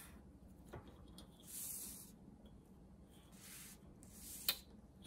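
Felt-tip permanent marker drawn across thick watercolor paper along a metal ruler: a few short, soft scratchy strokes, with a couple of light clicks as the ruler and sheet are repositioned.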